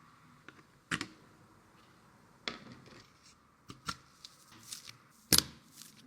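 Hands handling PC parts and packaging during a build: a string of sharp clicks and short rustles, the loudest about five seconds in.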